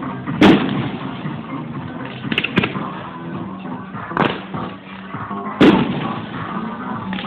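Fireworks exploding over background music: two loud sharp bangs, about half a second in and again near the end, with smaller cracks in between.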